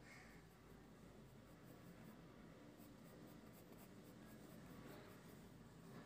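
Faint scratching of a graphite pencil on paper as it sketches, over a low steady hum.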